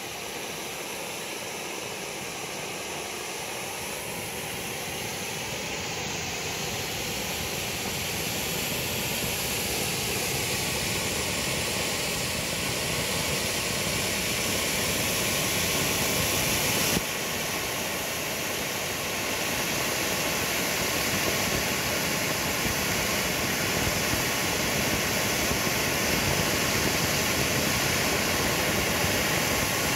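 Two Bugano/Zink gold firework fountains, No. 2 with blinker stars and No. 3 with colour stars, burning side by side with a steady rushing hiss of spraying sparks that builds in loudness, with a sudden brief drop in level about halfway through.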